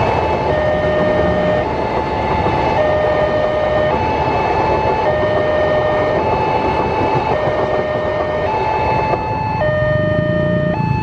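Ambulance siren sounding a two-tone hi-lo call, switching pitch about once a second, over the rushing noise of a passenger train's coaches passing a level crossing. The train noise drops away near the end and a low engine rumble rises.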